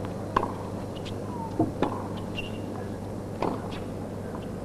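Tennis ball hit back and forth in a rally: sharp racket strikes and ball bounces on a hard court, coming every second or two, over a low steady background of the venue.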